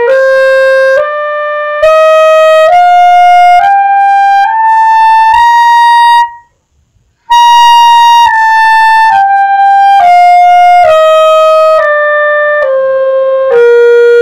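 B-flat clarinet playing the C major scale in its upper (clarion) register, each note tongued separately at about one note a second. It climbs step by step to the top C, breaks off for about a second, then comes back down the scale to the lower C.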